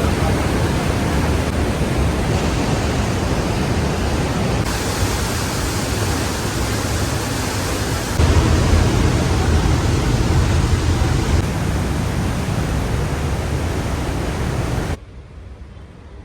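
Steady roar of a waterfall, its level stepping up and down a few times. It drops abruptly to a faint hiss about a second before the end.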